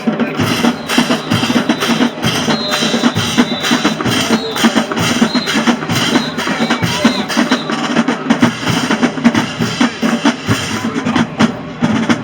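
Marching band playing loudly, led by its drumline's bass drums and snares in a fast, steady beat.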